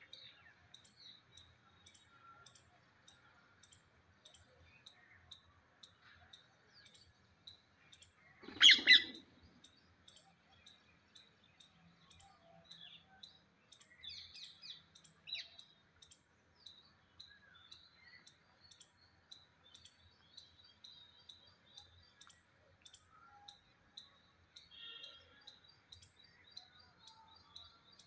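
Rose-ringed parakeets feeding: soft, scattered chirps over a steady patter of small clicks from beaks pecking at food on concrete. One loud, harsh call comes about nine seconds in, and a short run of brighter chirps follows around fifteen seconds.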